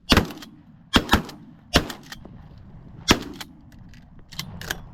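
A volley of shotgun blasts from two hunters wing-shooting pigeons: five shots in about three seconds, three of them within the first second and a half. Two fainter sharp sounds follow near the end.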